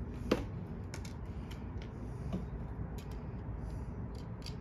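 Small metallic clicks as wire ring terminals and nuts are handled on the terminal studs of an electric motor's terminal box. One sharper click comes near the start, then a few fainter taps.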